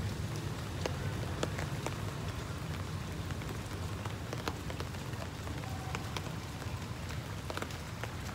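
Steady rain falling, with scattered sharp drop ticks over an even hiss and a steady low rumble underneath.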